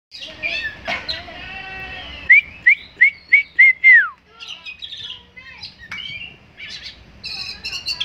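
Oriental magpie-robin (kacer) singing a varied run of chirps and whistles. About two seconds in comes a loud series of six short rising whistles, the last one drawn out and sliding down.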